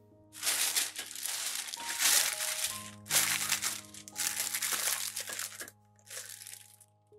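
Clear plastic piping bag crinkling in about four bursts as it is handled and a metal star nozzle is pushed down into its tip. Soft background music plays underneath.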